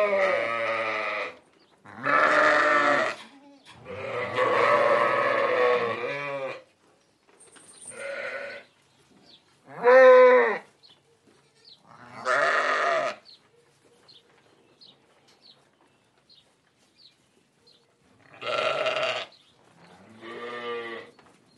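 Sheep bleating: about eight wavering calls a second or two apart, the one about four seconds in held longer, with a quiet gap of several seconds past the middle.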